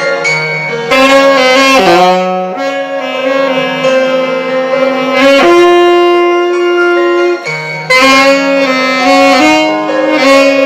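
Alto saxophone playing a slow melody of long, held notes over a backing accompaniment.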